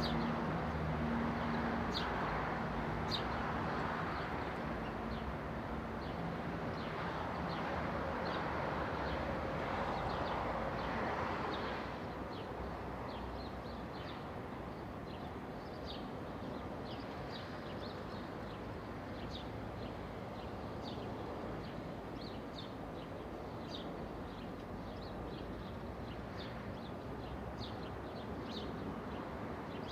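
Daytime residential street ambience: small birds chirping in short calls throughout over a steady hum of distant traffic. A vehicle goes by in the first twelve seconds or so, its low engine hum fading early on and the passing noise dropping off about twelve seconds in.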